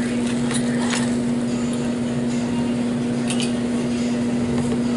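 Cutlery clinking and scraping against a plate a few times, over a steady hum.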